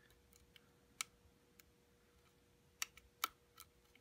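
Sparse, faint metallic clicks of a lock pick and tension tool working the pins inside a pin-tumbler lock cylinder, a handful in all, the sharpest about a second in and near the end. They come as the pins are let fall back under light tension in reverse picking.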